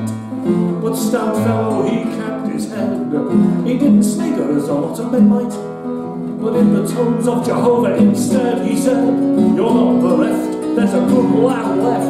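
A man singing a folk song and accompanying himself on a nylon-string classical guitar.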